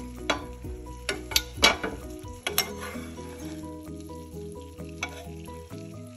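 Hot butter sizzling in a frying pan as a spoon bastes a beef teres major with butter, garlic and thyme, with several sharp spatters and spoon clicks in the first three seconds and one more about five seconds in. Background music plays underneath.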